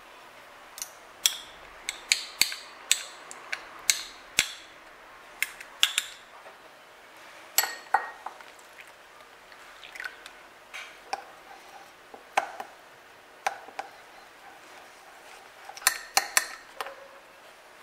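Metal teaspoon clinking and scraping against a small glass bowl while dry yeast is stirred and dissolved with honey and warm milk: a run of sharp, irregular clinks, some in quick clusters.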